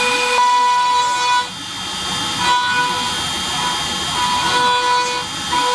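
Homebrew CNC router cutting wood: its air-cooled spindle gives a steady high whine. A second whine cuts in and out every second or so, and lower tones shift as the axes move.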